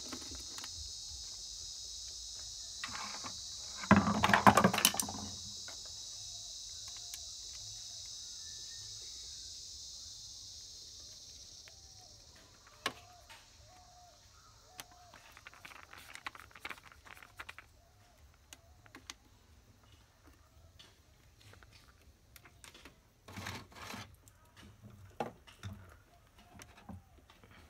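Insects chirring steadily in the background, fading out about twelve seconds in. A loud clatter of parts or tools being handled about four seconds in, then scattered small clicks and rustles of bench work.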